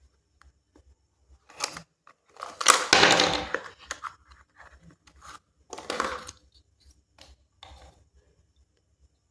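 Cube packaging being torn and handled in short scratchy bursts, the longest and loudest about three seconds in, with small clicks and rustles between.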